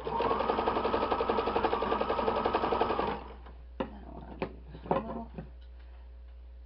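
Electric domestic sewing machine running a straight stitch at a fast, even rate for about three seconds, then stopping. A few light clicks follow as the fabric and lace are handled.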